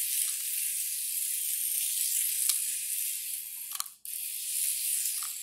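Tiny 1:64-scale RC car's micro motor and gears running as it drives across a tile floor: a steady high hiss-like whir with a few faint clicks, and a very brief dropout about four seconds in.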